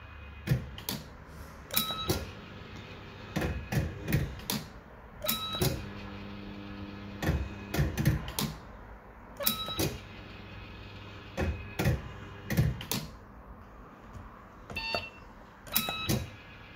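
Bell-Fruit Firecracker fruit machine in play: its electromechanical reels spin and clunk to a stop one after another, with repeated clicks and short electronic beeps. A held low tone sounds for about two seconds near the middle.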